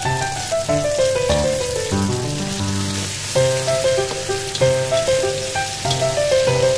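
Background instrumental music with repeated runs of falling notes over a bass line, with chicken livers and gizzards sizzling as they fry in a wok underneath.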